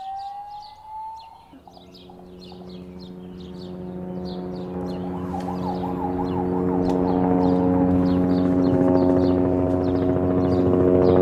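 A helicopter approaches, its steady droning hum growing louder. A short rising siren wail comes in the first second or so, and a brief warbling siren about halfway through.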